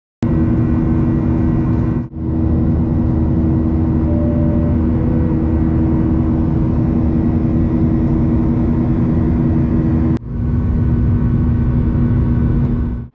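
Jet airliner engines heard from inside the cabin: a loud, steady drone with a constant hum. It drops out briefly about two seconds in and again about ten seconds in.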